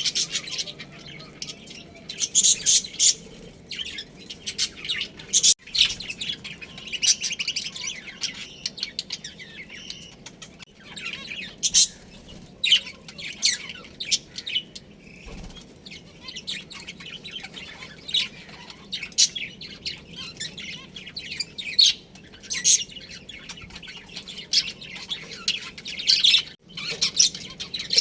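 A flock of budgerigars chattering, with many quick, high chirps and warbles overlapping almost without a break.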